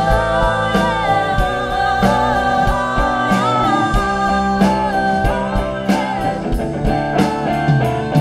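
Live pop-soul band: female lead vocals with a female backing singer, over electric guitar, keyboard and a drum kit keeping a steady beat. The singing holds long notes.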